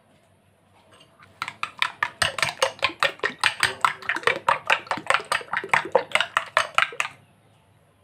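Metal spoon beating eggs in a glass bowl, clinking against the glass in a quick, even rhythm of about five strokes a second. The beating starts about a second and a half in and stops about a second before the end.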